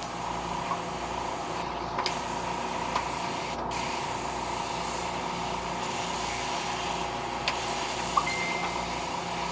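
Airbrush hissing steadily as it sprays paint in test passes on a napkin, the trigger feathered for a fine, narrow line. The hiss cuts out briefly twice, just before two seconds in and again at under four seconds, over a steady hum.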